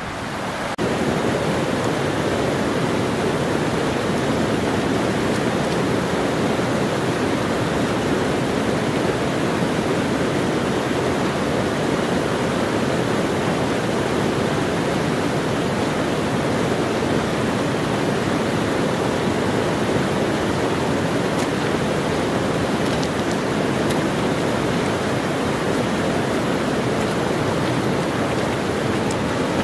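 Fast-flowing rocky fell stream rushing steadily over stones and small rapids, a continuous even roar of white water.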